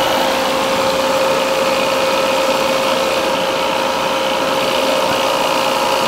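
Appion G5 Twin refrigerant recovery machine running steadily, its compressor pulling R-410A out of an air conditioner: a constant hum with a clear mid-pitched tone.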